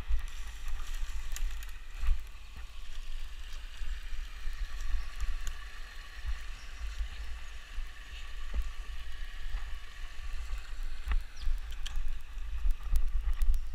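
A BMX bike ridden over a wet dirt trail, heard from a camera on the bike: an uneven rumble of bumps and wind on the microphone, a steady hiss of the tyres on wet ground, and scattered knocks and rattles from the bike over rough ground.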